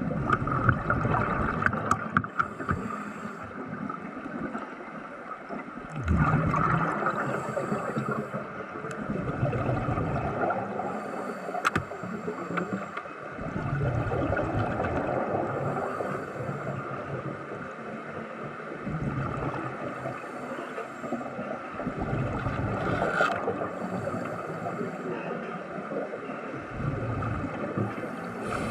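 Underwater gurgling and bubbling over a steady hum, swelling and fading every couple of seconds.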